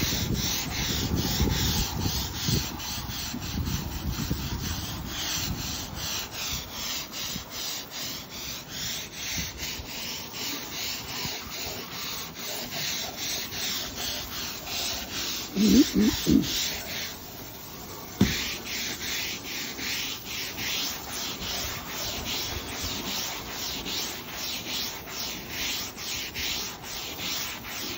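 A stiff-bristled deck brush scrubbing wet composite decking boards in quick, regular back-and-forth strokes, about three a second. A short, louder pitched sound comes about halfway through.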